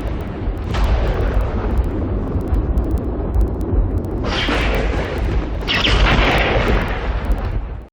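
Thunderstorm thunder: a steady deep rumble with three sharp cracks, about a second in and twice more later, each trailing off. The sound cuts off abruptly at the end.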